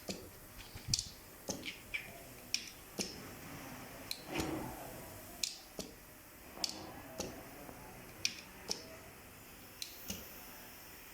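Table fan switches clicking over and over as a testing rig works them: sharp separate clicks, often in close pairs, about one to two a second.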